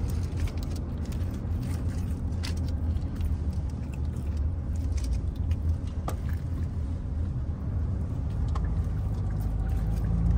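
Steady low road rumble inside a car cabin on the move. A few brief clicks and crinkles come from a foil-wrapped kebab being handled and eaten.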